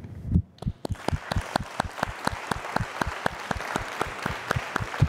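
Hand clapping, loud and distinct at about four to five claps a second, with a fainter wash of applause rising behind it from about a second in.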